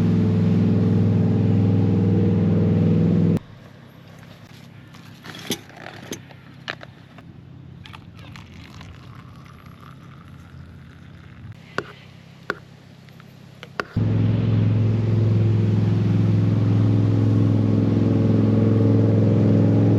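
Motorboat engine running steadily, cut off abruptly after about three seconds and coming back just as abruptly about fourteen seconds in. Between the two stretches there is a much quieter spell with scattered sharp clicks and scrapes.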